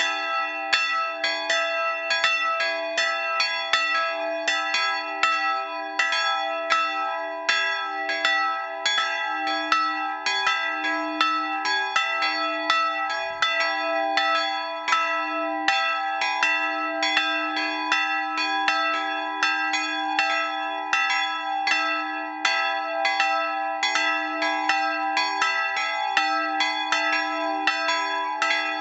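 Two bronze bells cast by Schilling & Söhne of Apolda in 1913, tuned to e'' and g-sharp'', swinging and ringing together. Their strokes come thick and steady and overlap, each tone ringing on under the next strike.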